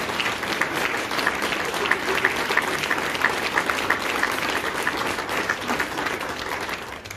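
Audience applauding after the choir's song, a dense steady clapping that fades away near the end.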